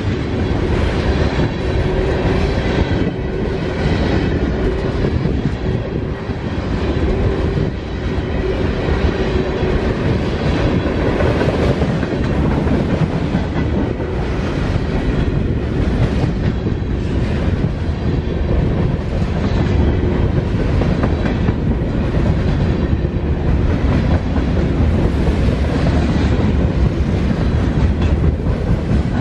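Loaded freight cars (tank cars and covered hoppers) rolling past close by: a steady rumble of steel wheels on rail with a repeating clickety-clack as the wheel trucks pass. A faint steady tone sits under the first half.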